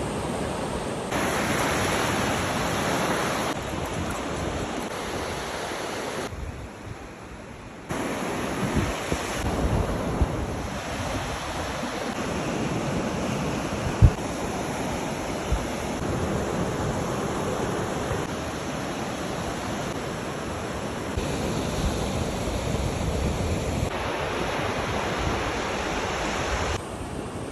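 Sea waves washing ashore, with wind buffeting the microphone. The noise changes level abruptly several times, and a single sharp knock comes about halfway through.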